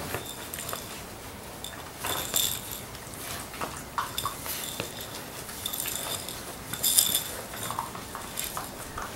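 Six-week-old Labrador Retriever puppies playing with toys, with bursts of high, metallic jingling, loudest about two seconds in and again around seven seconds, among light scuffles and knocks.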